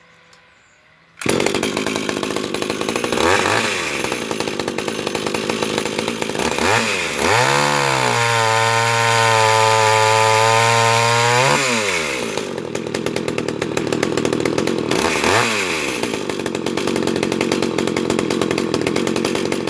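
Vintage Danarm two-stroke chainsaw running. It comes in loud about a second in and is revved up and down several times, held at high revs for a few seconds in the middle, then drops back.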